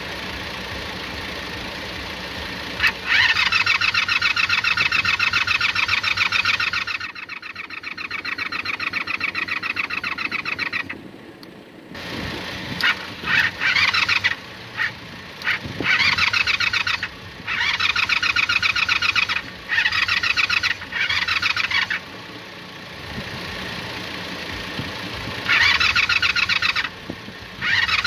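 Motorcycle starter motor cranking the twin-carburettor engine in repeated bursts: a few several-second stretches and a run of short stabs. The engine turns over but never fires, because the ignition key is off.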